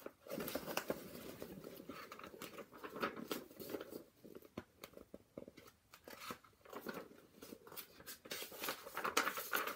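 Pages of a paperback picture book being opened and turned, a string of irregular crackly paper rustles.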